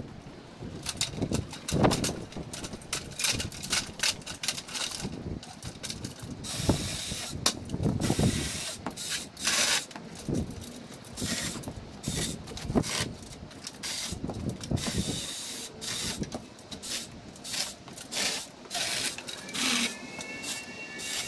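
Outdoor pruning work sped up: a dense, irregular run of clicks, knocks and short rustling hisses from ladder and branch handling, with no steady motor running.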